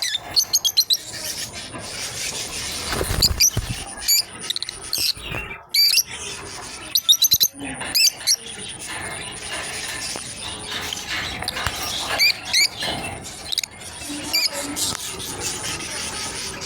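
Lovebirds chirping in short, high-pitched bursts of rapid calls, about ten times over the stretch, with pauses between, over a faint steady high whine.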